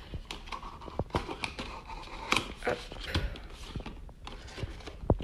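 Handling noise as a cardboard advent calendar door is opened and a small paper-wrapped gift box is taken out and unwrapped: paper and cardboard rustling and crinkling with many light taps and clicks, and one sharper knock near the end.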